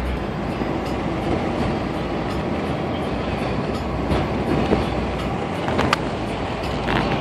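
Road noise inside a moving car: a steady rumble of tyres and engine, with a couple of sharp rattles or knocks near the end.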